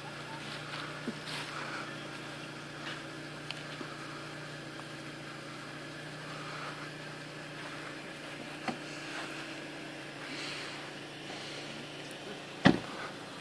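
Outdoor background with a steady low hum, a few faint clicks, and one sharp knock near the end.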